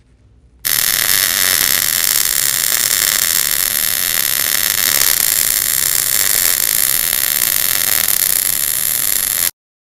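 MIG (gas metal arc) welding arc running a vertical-up cover pass on a T-joint, a steady hiss that starts suddenly about half a second in and cuts off suddenly near the end.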